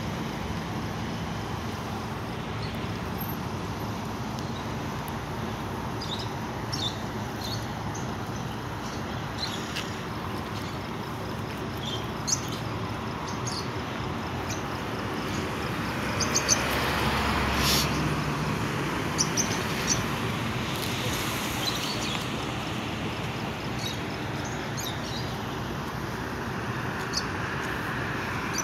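Steady hum of road traffic. It swells as a vehicle passes about halfway through, with scattered faint, short high clicks.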